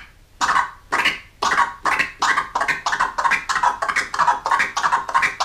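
Crab scratch: a sample scratched back and forth on a Rane Twelve turntable controller while four fingers flick the crossfader, cutting the sound into a quick run of short stuttering chops, about three to four a second.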